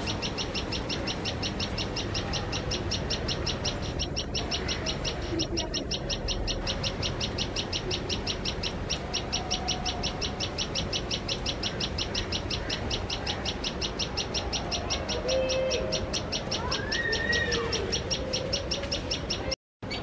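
Common tailorbird giving a long, fast run of sharp chip calls, about five a second and very even, the alarm it makes at a cat near its nest. A few other brief calls come in near the end.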